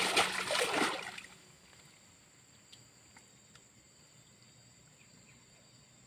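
Water splashing and sloshing for about a second, then a sudden drop to near silence with a few faint ticks.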